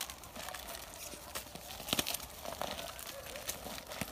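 Crinkling and rustling with scattered short clicks and ticks.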